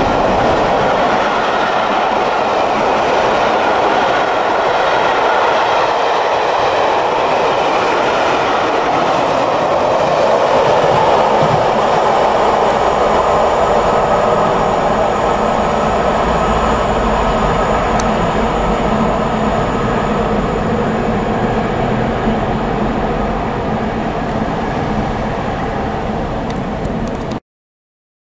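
A train of Pullman coaches running past at speed behind a steam locomotive, with steady wheel-on-rail noise. The noise eases slightly as the train draws away, then cuts off abruptly near the end.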